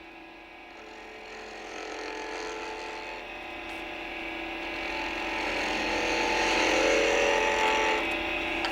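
Wood lathe running as a turning tool cuts into a spinning wooden ball, trimming off the small end-grain nubs left where it was held. The cutting noise grows steadily louder.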